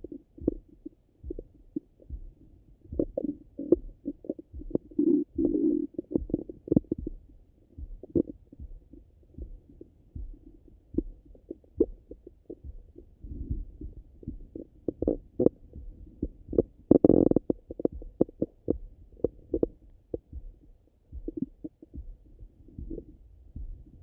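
Stomach gurgles and rumbles heard through a Littmann stethoscope pressed to the abdomen, the sounds of a stomach busy digesting breakfast. They come as a stream of short, low thuds with a few longer gurgles, the loudest a little past the middle.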